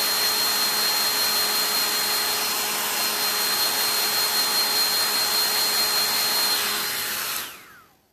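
Vidal Sassoon handheld hair dryer blowing steadily with a thin high whine, switched off about seven seconds in and winding down to silence.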